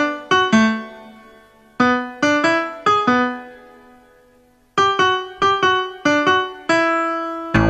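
Background music: a keyboard playing short phrases of single notes that strike and fade, with a pause of about a second and a half between phrases.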